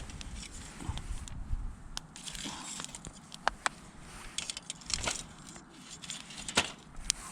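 Wood fire crackling, with irregular sharp pops and snaps, the loudest about halfway through and near the end.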